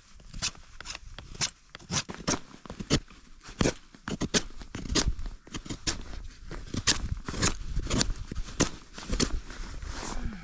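Buck knife shaving a stick into thin curls for tinder: a quick, irregular series of short scraping cuts, two to three a second.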